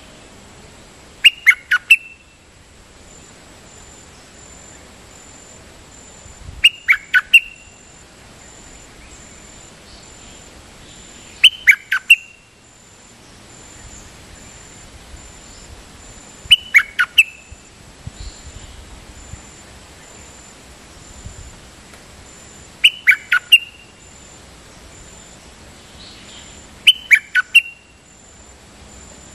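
Caged call bird of the kind Thai keepers call nok dok taeng, giving short bursts of three to four quick, loud whistled notes that fall in pitch. The bursts repeat about every five seconds.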